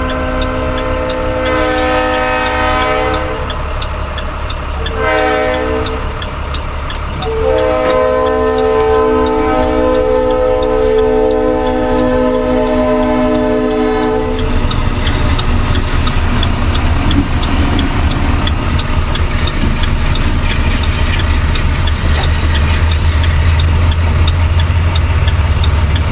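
A locomotive's air horn sounds a chord of several tones: a long blast ending about three seconds in, a short blast about five seconds in, then a long blast held for about seven seconds. This is the grade-crossing warning. The train then passes with a steady low rumble and wheels clattering over the rails.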